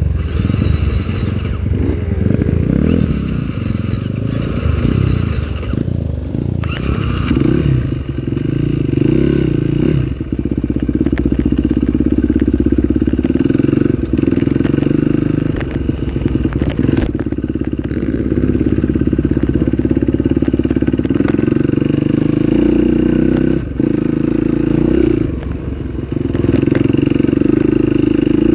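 Dirt bike engine revving up and down for the first few seconds, then held at steady high revs, with brief dips twice near the end.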